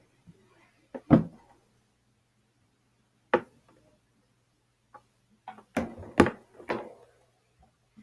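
A wooden desk drawer pushed shut with a thud about a second in, then a single knock, and a quick cluster of wooden knocks and clatter on the desk near the end, the loudest of them there.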